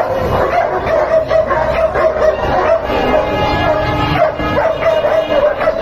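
Dogs barking and yipping over a steady din.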